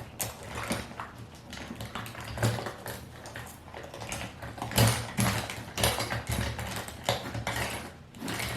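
Irregular clicks, knocks and rustles of makeup containers being handled and set down.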